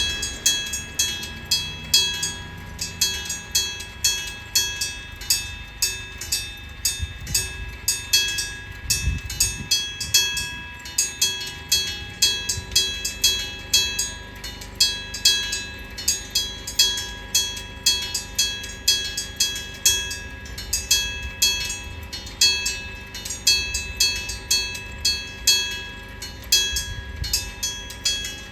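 Electric-bell level-crossing warning device ringing in an even run of metallic strikes, about two a second, each ringing on briefly. A train rumbles past in the middle of the run.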